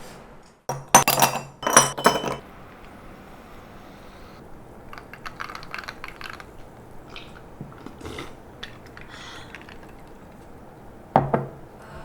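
Cutlery clinking against a plate while food is cut and eaten: a quick cluster of sharp clinks, soft clattering, then one more clink near the end.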